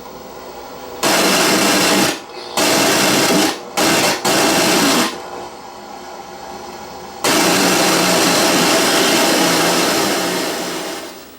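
Tape audio from a Sony EVS-7000 Hi8 deck's audio output, cutting in and out abruptly in four loud bursts. The last burst is the longest and fades near the end. The sound comes through only while a wet finger bridges the faulty sub-channel audio circuit, whose fault is a shorted or leaky 10 µF capacitor.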